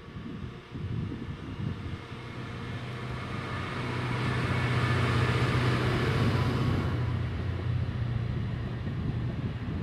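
Class 66 diesel locomotive's two-stroke EMD V12 engine droning as it passes, hauling an intermodal container train, loudest from about four to seven seconds in. The drone then eases into the rumble and hiss of the container wagons rolling by.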